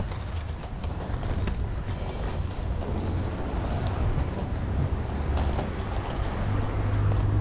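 Skate wheels rolling over asphalt in a steady low rumble, with scattered light clicks and wind rushing over the microphone.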